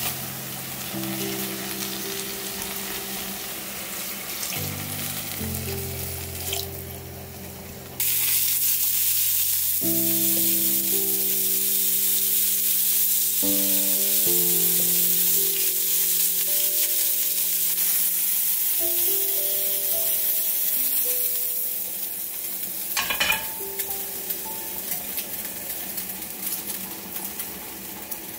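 Oil sizzling as food fries: soaked seaweed and beef being stir-fried in a pot, then olive flounder bones frying in a pan. The sizzle jumps suddenly louder about eight seconds in, with a few knocks a little after the middle.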